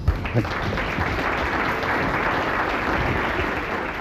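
Audience applauding steadily, dying away slowly near the end.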